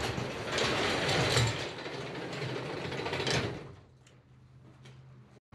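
Sectional garage door being pushed up by hand, its rollers rattling along the metal tracks for about three and a half seconds and stopping with a clunk as it reaches the top.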